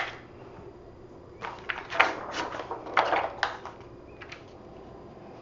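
Plastic carrier sheet of heat transfer vinyl rustling and crinkling as it is handled and laid over a T-shirt, in two spells, with a sharp click about two seconds in.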